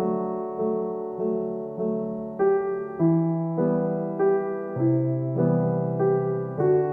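Background music: a soft electric piano playing a gentle, evenly paced melody, a new note or chord about every half second.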